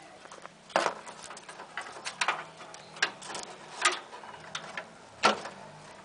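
Irregular clicks and knocks of cables and connectors being worked through the cable-routing cutouts of a desktop computer case, about five sharp ones, the loudest a little past five seconds in.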